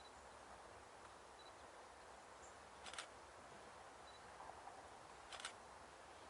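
Near silence: faint steady background hiss, with two brief clusters of clicks about two and a half seconds apart.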